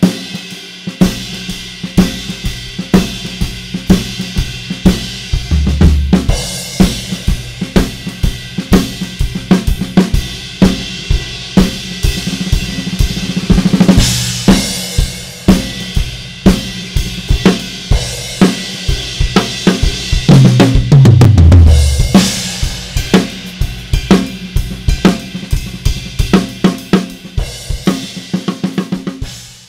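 Sonor Designer acoustic drum kit played in a steady groove with snare, kick, hi-hat and crash cymbals, recorded through an Audix DP7 drum microphone set with no EQ or processing. Twice, about five seconds in and again about twenty seconds in, a tom fill steps down from the high toms to the floor tom; the playing fades out at the end.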